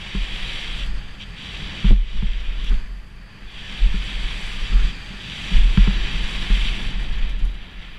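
Wind buffeting the microphone of a camera riding on a Kona Process 167 full-suspension mountain bike as it descends a dirt trail at speed, with tyre noise and sharp knocks from the bike over bumps, loudest about two seconds in and again near six seconds.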